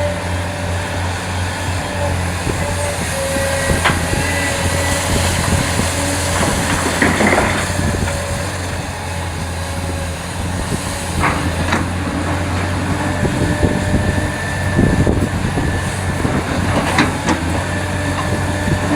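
Heavy earthmoving machinery running steadily, a deep diesel engine hum with a few sharp metallic clanks and knocks scattered through.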